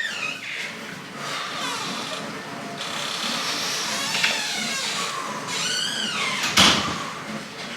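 High, animal-like calls that glide up and down in pitch, several in a row, over a steady background hiss, with a sharp clack near the end.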